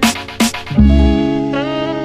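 Background music: a couple of drum hits near the start, then a melody of pitched notes with slight bends over a held bass.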